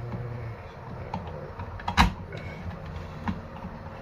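Light clicks and knocks of parts of a boat's remote control box being handled and fitted together, with one sharper knock about two seconds in.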